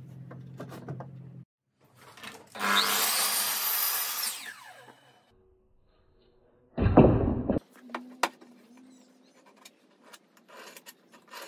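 A power mitre saw runs and cuts through a timber board, and its blade whines down in pitch afterwards. A short, very loud burst follows, then light knocks and taps of wooden boards being handled. A low steady hum at the start cuts off about a second in.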